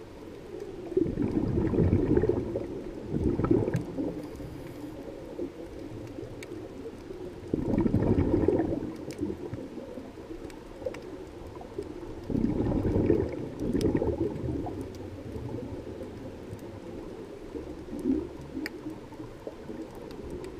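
Scuba diver's regulator exhaust bubbles gurgling in repeated bursts every few seconds, one for each breath out, heard through the camera's underwater housing. Faint scattered clicks sound between the bursts.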